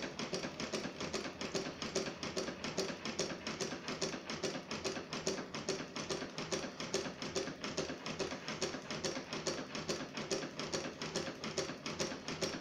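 Homemade twin solenoid engine running at a steady speed, its solenoids snapping their plungers in turn to drive a heavy flywheel. The result is an even mechanical clacking of about five clicks a second.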